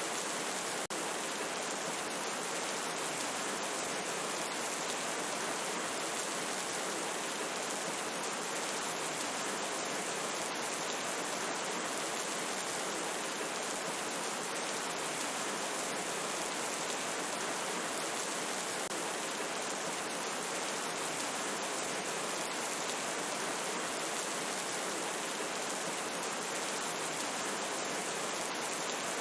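Steady rain falling, an even hiss of many drops with no let-up, broken only by a faint click about a second in.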